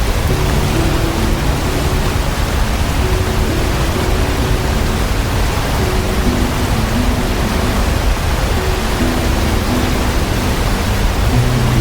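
Loud, steady roar of a waterfall, falling water without a break. Soft, low music notes step along beneath it.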